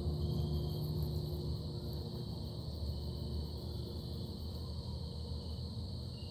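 A low, steady droning hum of unknown origin, slowly easing a little in level, with a steady high-pitched whine over it.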